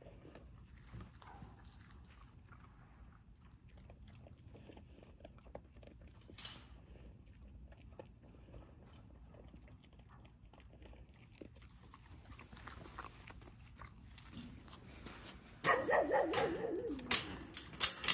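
Faint scattered rustles and clicks, then near the end a dog vocalizing: a drawn-out whine-like sound about a second and a half long, falling in pitch, followed by a few sharp clicks.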